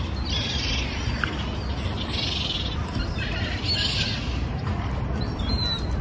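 Birds chirping: three bursts of high twittering within the first four seconds, with a few short chirps later, over a steady low rumble.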